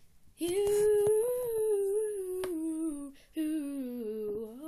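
A person humming a wordless tune in two long held phrases. The pitch slides slowly down through each phrase and rises again at the very end.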